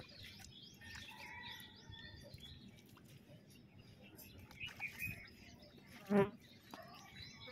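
Background birds chirping faintly: many short high chirps, with one short, louder pitched call about six seconds in.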